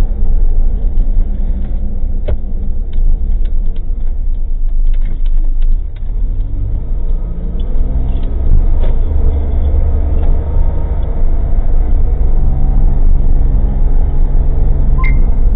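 An old Suzuki Jimny kei car's engine running on the move, heard inside the cabin through a cheap dashcam microphone, with clicks and rattles from the body. About six seconds in the engine note drops back, then rises in pitch as the car picks up speed again.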